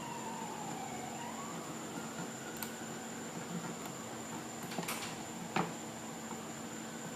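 A siren wails in the background, its pitch falling and then starting to rise again before fading about a second in, over a steady hiss and low hum. A few sharp clicks come around the middle.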